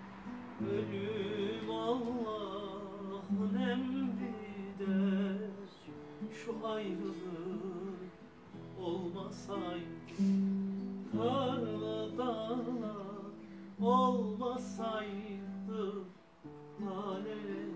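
Bağlama (Turkish long-necked saz) playing a folk-song melody, plucked, with wavering ornamented runs over steady low notes that change every couple of seconds.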